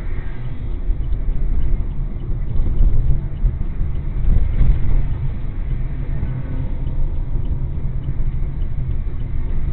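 Steady low rumble of engine and tyre noise from a car driving along a city street, heard from inside the cabin.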